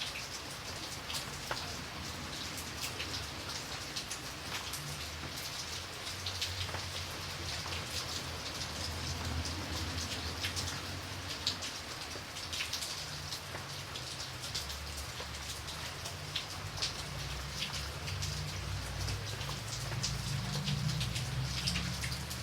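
Steady rain falling on a surface, a continuous hiss with many individual drops ticking through it. A low rumble runs underneath and grows stronger near the end.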